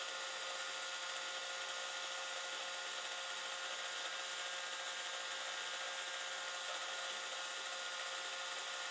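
Small electric motors on a prototype mini CNC saw rig running steadily, a constant whine with a few steady tones over a hiss.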